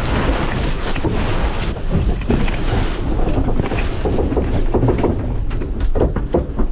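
Spinnaker sailcloth being hauled down hand over hand on a racing yacht, with an irregular rustling and knocking over steady wind rumble on the microphone.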